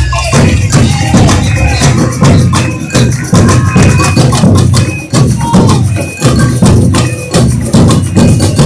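Carnival batucada drum section playing: deep bass drums beating in a regular pulse under dense, fast strokes of higher drums and shakers.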